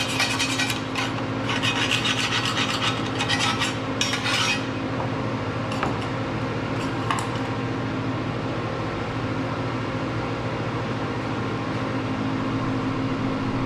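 Scraping and rubbing in bursts for the first four seconds or so, with a couple of light knocks a little later. A steady machine hum runs under it.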